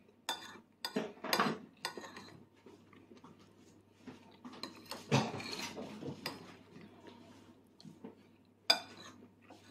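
Cutlery and tableware clinking at a meal: scattered light clinks and scrapes of utensils against plates and bowls, a longer scrape about five seconds in and a sharp clink near the end.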